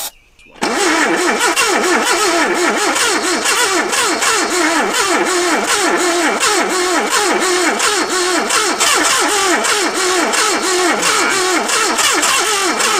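Starter cranking the carburetted engine of a 1978 Datsun in a steady, even rhythm that never speeds up. The engine does not catch: the carburettor's throttle blade is seized, and the owner reckons the engine is flooded.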